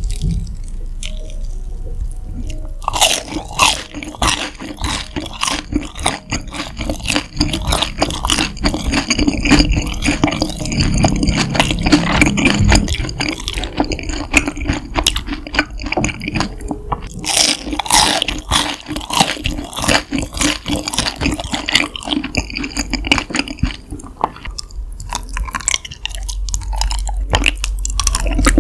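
Close-miked crunching bites and chewing of a crisp bread stick and honeycomb, the wax comb giving softer, sticky chews. A neighbour's piano plays faintly underneath for much of the time.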